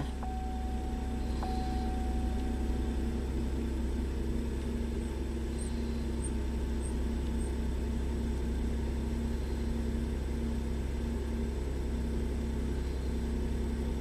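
2009 Chevy Traverse's V6 direct-injection engine at a steady fast idle of about 1,300 rpm just after start-up. The engine sets intake cam timing code P0011, which the technician thinks could be an oil control solenoid not controlling the cam phaser, letting the phaser get loose.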